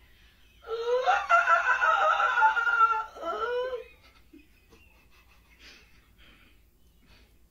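A person's high-pitched, wavering laugh with gliding pitch, starting about a second in and lasting about three seconds, then only faint small sounds.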